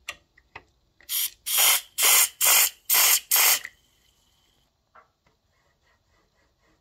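Six short bursts of DeoxIT contact-cleaner spray hissing through a red extension straw into a turntable's rotary switch to clean its contacts. Near the end, faint clicks as the switch knob is turned to work the cleaner in.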